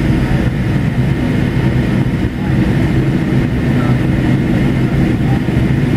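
Steady engine and airflow noise inside the cabin of a McDonnell Douglas MD-88 climbing out after takeoff, from its two rear-mounted Pratt & Whitney JT8D turbofans at climb power. A faint, steady high whine runs through the low, even rumble.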